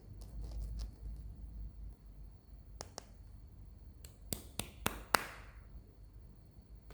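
Hands handling a plastic toy and its packaging close up: a few soft clicks, then a run of five sharp plastic clicks about a quarter second apart a little past the middle, the last trailing into a brief rustle.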